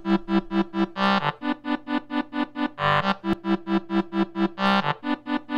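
Electronic music on a synthesizer: a quick, even figure of about five notes a second, broken by a longer held chord about every two seconds.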